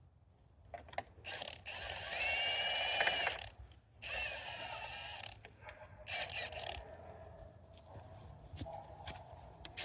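A tool working the fasteners on a plastic round bale feeder: a run of mechanical whirring and ratcheting about a second in, and a second shorter run about four seconds in, followed by lighter clicks and rattles.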